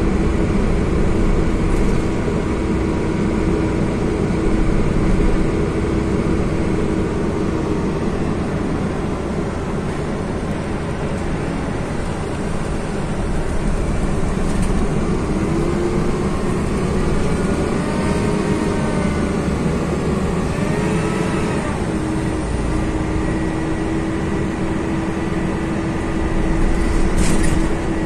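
Interior sound of an Irisbus Euroclass coach under way: its Iveco Cursor 8 six-cylinder diesel and Voith Diwa automatic gearbox running with a low rumble and a steady whine. The whine fades about a third of the way in, tones slide up and down for several seconds, then the steady whine returns; a short click comes near the end.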